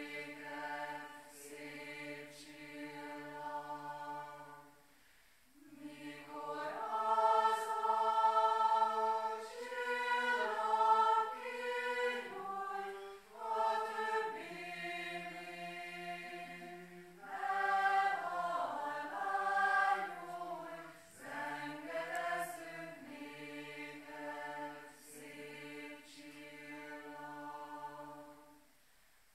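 A small group of mixed voices singing a Hungarian song a cappella in slow, sustained chords, phrase by phrase. There is a short pause about five seconds in, and the sound dies away near the end.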